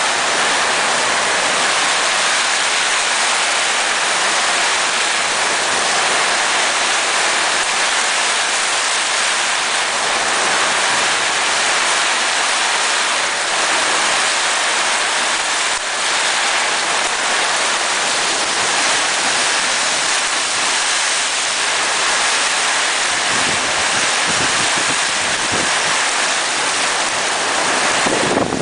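Heavy monsoon downpour pelting a corrugated metal patio roof and pouring off its edge: a loud, steady, dense hiss. Wind gusts start buffeting the microphone in the last few seconds.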